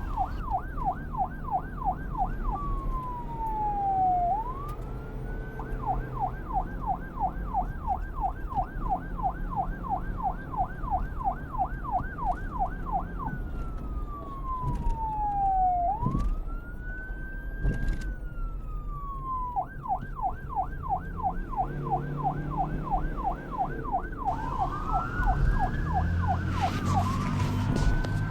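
Police car siren alternating between a fast yelp, about four rises and falls a second, and slower single sweeps that fall and climb back over a second or two. Near the end the siren slows to a wail and a second wailing siren overlaps it, over a low steady traffic rumble.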